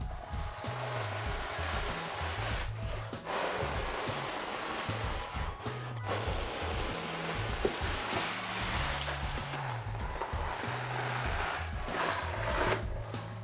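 Peel-and-stick wallpaper being pulled away from the wall, a steady peeling noise broken by a few short pauses between pulls, over background music with a stepping bass line.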